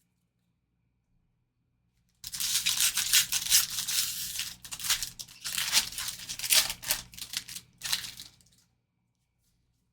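A foil trading-card pack wrapper torn open and crinkled by hand: a burst of irregular crackling and ripping that starts about two seconds in and stops near the end.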